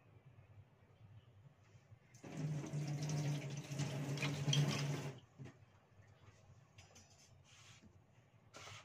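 Water running from a tap into a sink for about three seconds, starting about two seconds in and then shut off, with a low steady hum under the rush of water.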